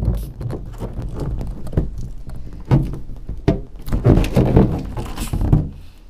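Hands pressing, rubbing and knocking on the skin of an inflated balloon, heard from a camera inside it: a run of irregular muffled thumps and rubbery scrapes with a low rumble.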